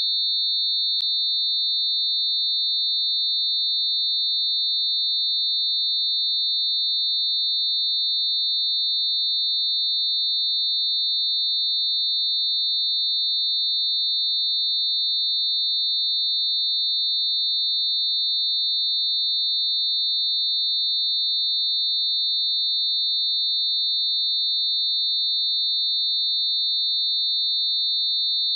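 Synthetic test tone: several steady sine tones mixed close together around 4 kHz, giving one constant high-pitched beating whine. A faint click comes about a second in.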